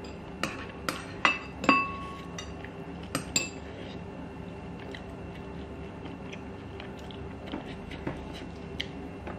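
Tableware clinking: metal spoons knocking against glass serving bowls and a ceramic plate. There are several sharp clinks in the first few seconds, a couple ringing briefly, then a few fainter taps, over a faint steady hum.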